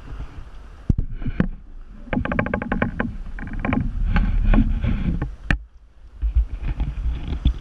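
Sailing yacht under spinnaker: wind rumble with creaks and knocks from the gear. There are a couple of sharp clicks about a second in, then a quick run of rattling clicks about two seconds in and a single sharp crack near the end.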